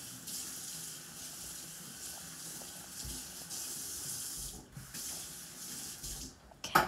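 A steady high hiss that cuts off abruptly about six seconds in.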